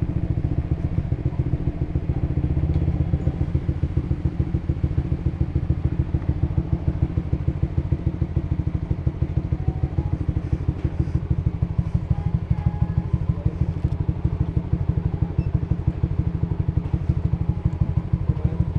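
Honda Supra GTR150's single-cylinder engine running steadily through its aftermarket Tridente exhaust while the motorcycle is ridden, a fast even train of exhaust pulses.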